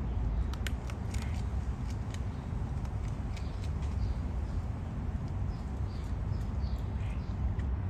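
A raccoon chewing and crunching nuts held in its paws, heard as a scatter of short sharp clicks, over a steady low rumble. Faint short high chirps come now and then.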